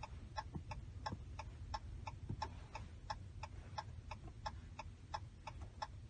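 Hazard-light flasher of a 2018 Ram pickup ticking steadily, about three clicks a second, heard from inside the cab.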